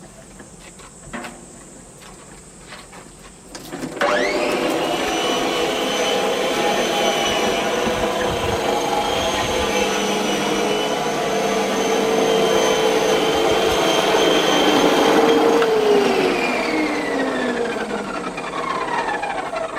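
Makita MLM-2851 electric reel mower starting about four seconds in: the motor and reel spin up with a rising whine, run steadily, then wind down with a falling pitch near the end. The mower makes an abnormal noise that the owner takes for a worn reel-blade shaft bearing.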